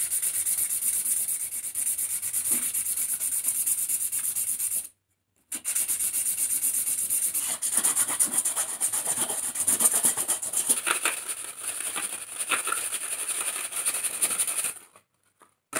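A wooden butter knife being hand-sanded with fine P240 sandpaper: fast back-and-forth rubbing strokes for the finishing smoothing. The sanding stops for about half a second around five seconds in and ends shortly before the end.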